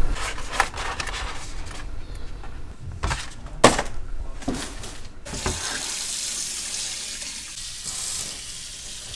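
Kitchen work: several knocks and clinks of cookware, the sharpest about three and a half seconds in, then a steady hiss that starts suddenly about five seconds in.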